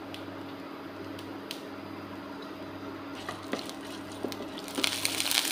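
Mustard seeds and urad dal frying in hot oil in a nonstick pan: a few scattered pops at first, then a burst of dense crackling near the end as the mustard seeds start to splutter, the sign that the tempering oil is hot enough. A steady low hum runs underneath.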